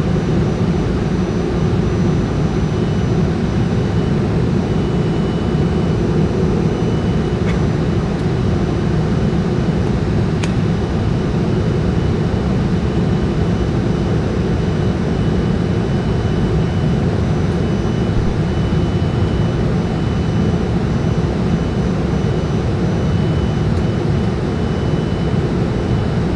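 Steady jet airliner engine and airflow noise with a low rumble and a faint steady whine, heard inside the cabin as the aircraft climbs after takeoff.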